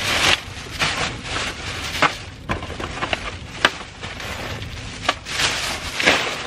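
Clear plastic bag crinkling and rustling as used cardboard food boxes and paper wrappers are stuffed into it, with many irregular sharp crackles.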